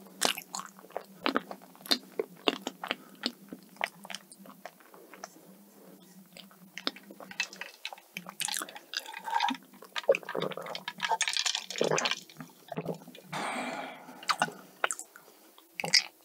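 Close-miked chewing and wet mouth sounds of eating dessert: many short clicks and smacks. Around the middle come longer sipping sounds of a cold drink drawn through a metal straw.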